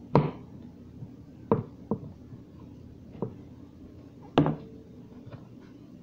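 Food containers knocking and clunking as they are handled and set down: about six sharp knocks, the loudest about four and a half seconds in.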